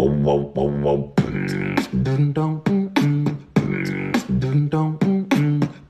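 Beatboxed vocal music track: pitched vocal sounds cut by sharp percussive hits in a rhythmic pattern that repeats about every two and a half seconds.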